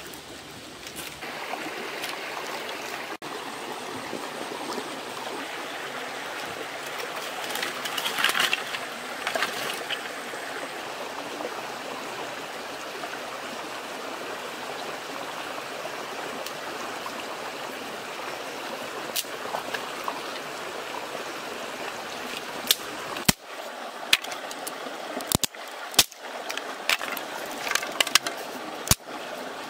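Shallow stream running steadily over rocks. In the last several seconds there are a number of sharp knocks as dry sticks are handled on bare rock.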